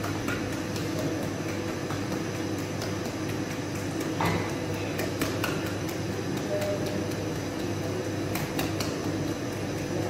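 Steady mechanical hum and rumble of bakery equipment, with scattered light clicks and taps.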